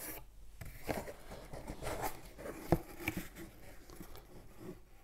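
Cardboard shipping box handled and its flaps opened: rustling and scraping of cardboard with a few sharp knocks, the loudest about two and a half seconds in.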